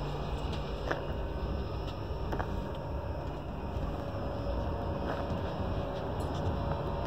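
Steady low rumble inside an Indian Railways first AC coach, with a couple of faint clicks.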